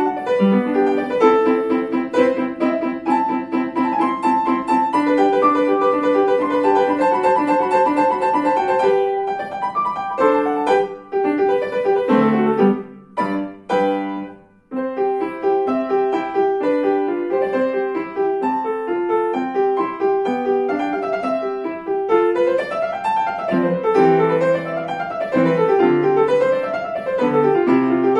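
Upright piano played solo: a steady stream of notes and repeated chords, thinning to a few halting chords about halfway through, then rising and falling runs up and down the keyboard near the end.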